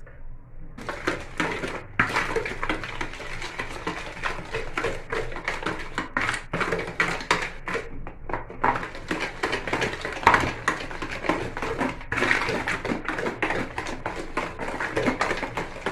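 Hand whisk beating eggs into creamed margarine and sugar in a bowl: rapid, uneven clattering strokes starting about a second in.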